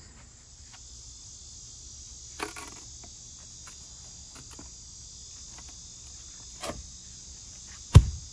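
Steady, high-pitched chorus of insects, with a few light knocks from garden work and one heavy thump near the end.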